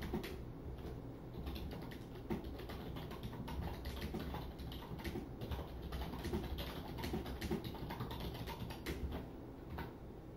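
Typing on a computer keyboard: a steady run of irregular keystroke clicks.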